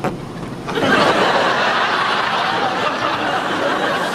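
Studio audience laughing, swelling up about a second in and carrying on steadily.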